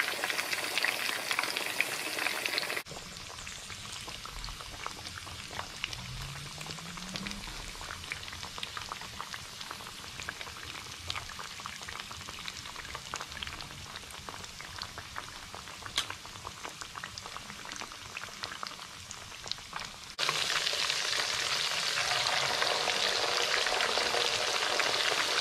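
Pieces of pre-simmered, cooled chicken shallow-frying in hot oil: a steady crackling sizzle of many small pops, the second frying of twice-cooked chicken. It is louder about the first three seconds and again for the last five, changing level abruptly at each point.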